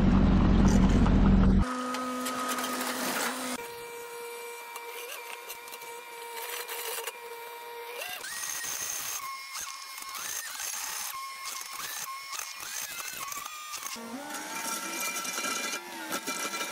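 Case TV450 compact track loader running a hydraulic post-hole auger: a steady mechanical whine of several tones that shifts and glides in pitch as the auger works into the ground. It opens with a loud low rumble for about a second and a half.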